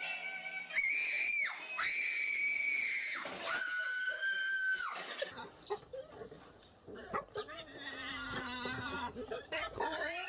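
Three long, high-pitched screaming cries, each held steady for about a second, followed by muffled voices.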